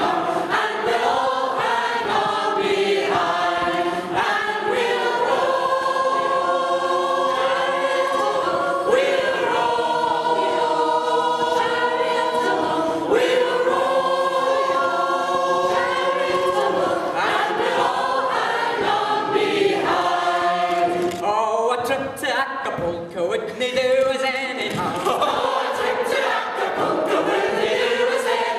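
Mixed community choir of men's and women's voices singing unaccompanied in harmony, with a short break in the phrasing about three-quarters of the way through.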